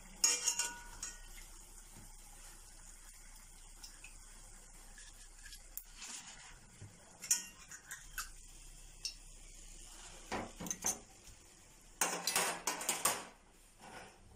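Metal utensil clinking and knocking against a stainless steel pot while fried cannoli shells are lifted out of the oil. A few single clinks are followed by a burst of clattering near the end.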